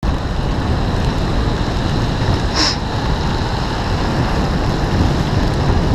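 Wind buffeting the microphone of a camera on a moving bicycle on wet road, a steady low rush with tyre and traffic noise under it. A short high hiss about two and a half seconds in.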